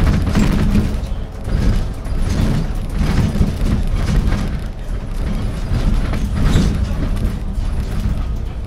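Iveco Urbanway 12 CNG city bus heard from on board while driving: a loud, steady low rumble of engine and road, with scattered knocks and rattles from the cabin.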